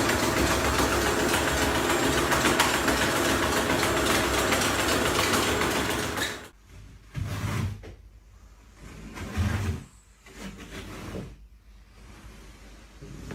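A small motor running steadily for about six seconds, then cutting off suddenly, followed by a few short, separate knocks and rustles.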